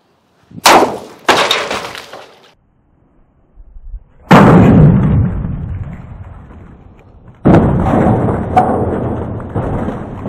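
Wooden baseball bat fitted with a metal spike striking a large plastic water-cooler jug full of water: two sharp hits near the start, then two heavy blows about four and seven and a half seconds in, each followed by a long splash of water spraying out of the punctured jug.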